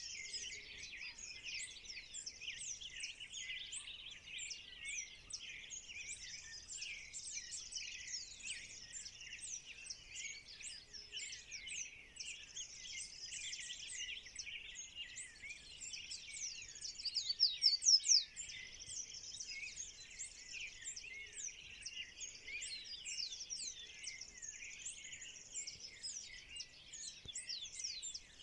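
Dawn chorus of many birds: a dense, steady layer of overlapping high chirps and whistles, with one louder run of quick repeated notes a little past the middle.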